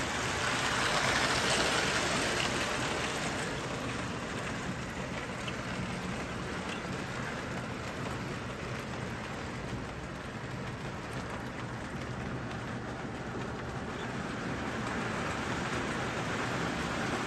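O-gauge toy steam locomotive hauling plastic bay window cabooses on three-rail tinplate track: a steady rumble and rattle of wheels on the rails, loudest about a second or two in as the train passes close.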